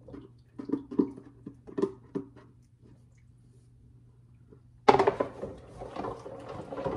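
Dishes knocking and clinking in a kitchen sink as they are washed, a few sharp knocks in the first couple of seconds. About five seconds in, a tap comes on suddenly and water runs into the sink, the loudest sound.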